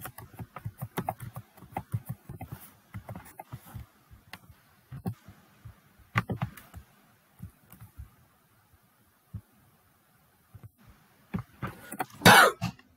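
Computer keyboard typing: scattered key clicks, dense for the first several seconds and sparse after, then one brief louder noise near the end.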